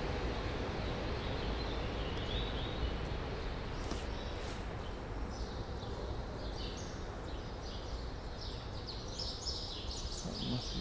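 Ambient noise under a train shed: a steady low rumble, with small birds chirping from about five seconds in.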